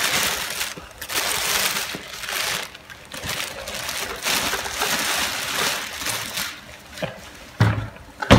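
Rustling and crinkling of packaging as box contents are handled, in uneven surges, with a couple of knocks near the end.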